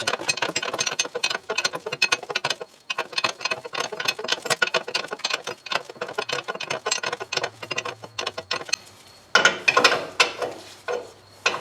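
Hand ratchet clicking rapidly in runs with short pauses as a nut is tightened onto a ball joint stud, the stud held from spinning with a pry bar; the clicking is louder near the end as the nut snugs up.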